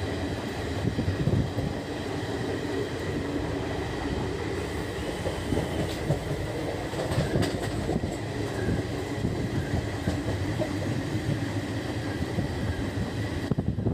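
Passenger train running along the track, heard from an open coach doorway: a steady rumble of wheels on rails, with a few sharp clacks a little past the middle.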